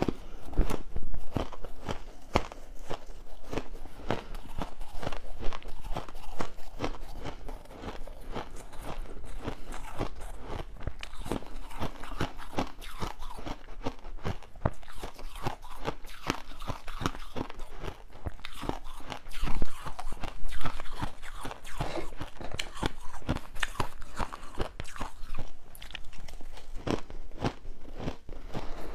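Crushed ice being chewed close to a clip-on microphone: dense, continuous crunching, with louder bites about a second in and again around twenty seconds in.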